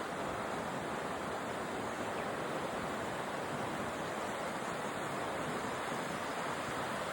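Rushing water, a steady even noise with no breaks or gusts.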